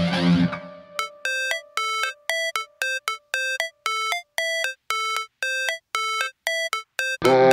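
Background music. The full mix drops out in the first second and leaves a run of short electronic notes, about three a second with silence between them. The full track comes back in suddenly near the end.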